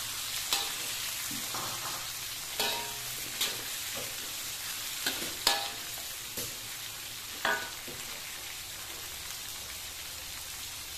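Chopped tomato, bell pepper, cucumber and onion sizzling in oil in a metal wok as they are stir-fried. A metal spatula knocks and scrapes against the wok about seven times in the first eight seconds, some knocks ringing briefly.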